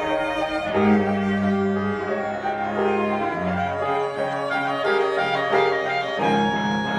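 Contemporary chamber music: a mixed ensemble of flute, clarinet, violin, cello, percussion and piano playing sustained notes, with the cello's low bowed notes prominent. A new low note comes in about a second in and the chord changes near the end.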